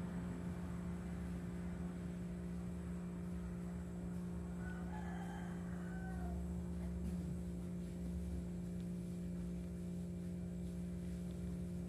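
A steady low electrical hum throughout, with a faint distant rooster crow about five seconds in.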